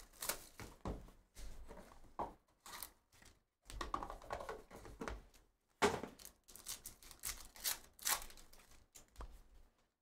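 Trading-card packaging being torn open and handled: irregular tearing and crinkling of box wrapper and card packs, with sharper rips about six and eight seconds in.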